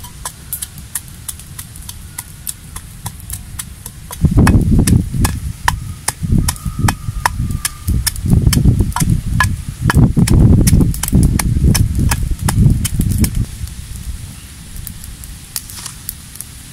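Wooden pestle pounding salt and red chilies in a stone mortar: a quick run of dull, heavy thuds starting about four seconds in and stopping a few seconds before the end, with sharp clicks scattered throughout.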